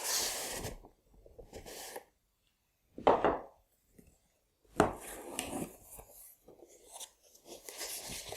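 Packaging being handled as a model box is opened: cardboard and foam inserts scraping and rubbing in irregular bursts, with sharper knocks about three and five seconds in.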